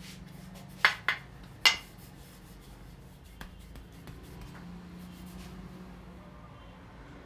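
Three sharp clicks in quick succession within about a second, then a faint click a couple of seconds later, over a steady low hum.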